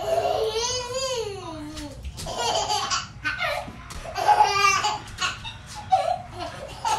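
Baby laughing in high-pitched squealing bursts, one long rising-and-falling squeal near the start and shorter laughs after it.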